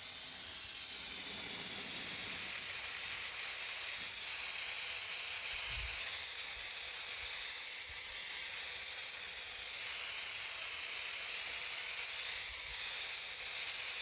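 Paint spray gun spraying polyurethane leather paint: a steady, high hiss of air.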